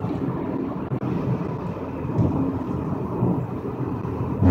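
Low, steady rumble of road and engine noise inside a moving car, with a sudden louder bang at the very end.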